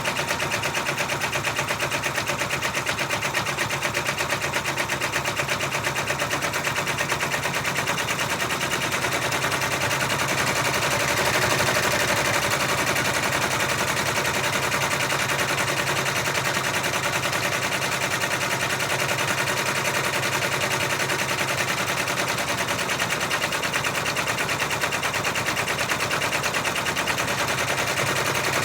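Multi-needle embroidery machine stitching out a monogram at speed, a fast, even clatter of needle strokes.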